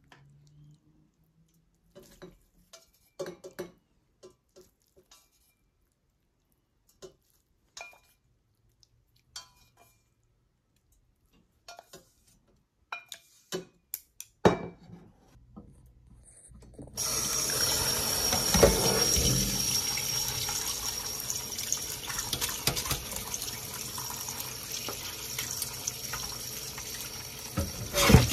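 Sparse light clicks and taps of wooden chopsticks against a steel saucepan and mesh strainer. A little past halfway, a kitchen tap starts running steadily, its water splashing through rice noodles in a mesh strainer in a steel sink.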